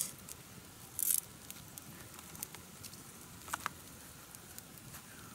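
Dry plant material and split bamboo sticks being handled: a short rustle about a second in and a few light clicks and snaps.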